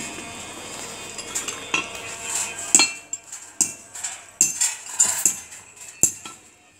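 Wrought-iron bars and scrollwork clinking and being tapped: irregular light metal strikes, about a dozen, starting about a second in, some with a short ring.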